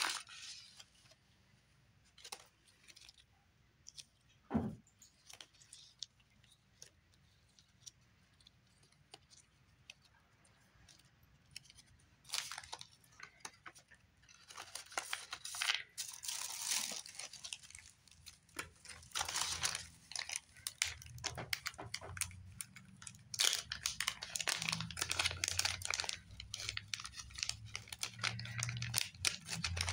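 Paper and cellophane rustling and crinkling as hands handle die-cut stickers, paper ephemera and a clear plastic sleeve. Sparse light clicks and rustles at first, getting busier and louder from about halfway.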